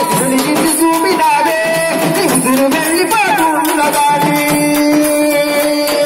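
A Telugu dappu troupe performing: a man sings into a microphone, with long held notes, over dappu frame drums beaten in rhythm.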